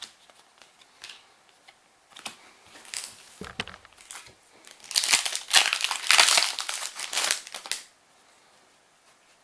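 Foil booster pack wrapper crinkling as it is torn open and crumpled, loudest for about three seconds past the middle, with lighter rustling and card-handling ticks before it.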